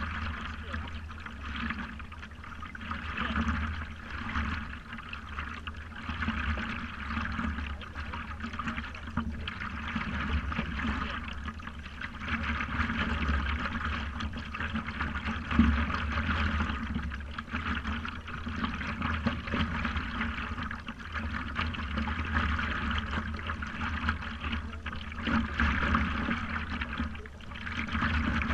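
Water lapping and trickling against the nose of a stand-up paddleboard, close to the camera at water level, a continuous, uneven splashing over a low rumble.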